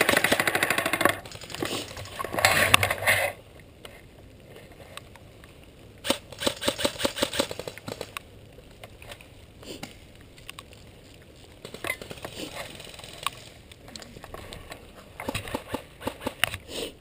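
Airsoft M249 SAW firing on full auto in four bursts of rapid clicking shots, each one to two seconds long, with pauses between.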